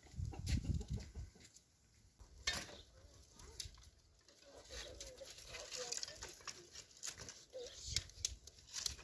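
Dry twigs and branches snapping and clattering as they are gathered and stacked into a brick fire stove, with faint calls in the background.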